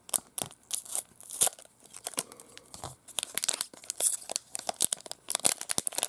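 Plastic and tape wrapping on a tightly sealed trading card pack being cut and torn open, with crinkling and quick, irregular crackles that grow busier about halfway through.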